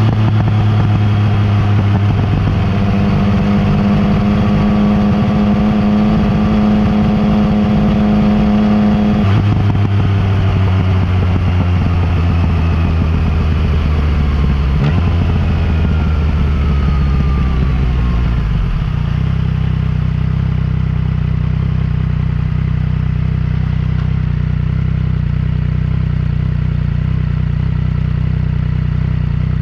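Yamaha MT-09 Tracer's three-cylinder engine through an Akrapovic exhaust, running at a steady pace while riding. About nine seconds in the engine note drops and then falls gradually as the bike slows, settling into a steady low note for the last ten seconds.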